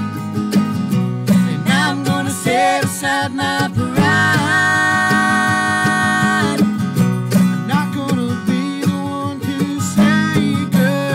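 Acoustic guitar strumming under singing in a bluegrass duet, with one note held for a couple of seconds midway.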